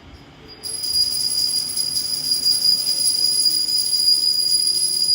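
Continuous high jingling of small bells, starting abruptly about half a second in, with a steady ringing shimmer over it.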